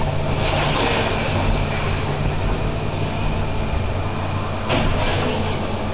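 Demolition excavator's diesel engine running steadily under load, with the grinding crash of brickwork being broken and falling, loudest about half a second in and again with a sudden crash near the end.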